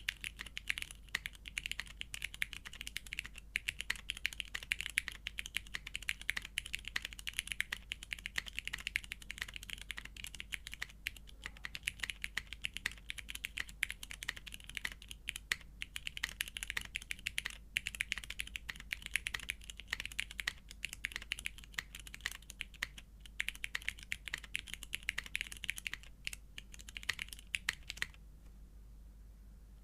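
Continuous fast typing on a custom mechanical keyboard with lubed vintage Cherry MX Brown switches on a polycarbonate plate and GMK keycaps. It is a dense run of key clacks that stops about two seconds before the end.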